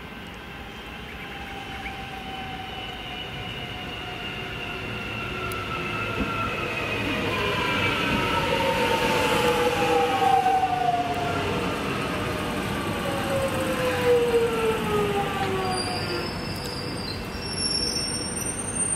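An Alstom X'trapolis 100 electric multiple unit pulls into the platform and brakes. Its drive gives several whining tones that fall in pitch together as it slows, growing louder as the cars come alongside. A few short high-pitched tones sound near the end.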